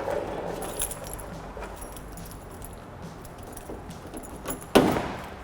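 Car keys jingling on their ring as a key is worked in the outside door lock of a 2000 Nissan Pathfinder, with scattered small clicks. A single loud clunk near the end as the door lock operates.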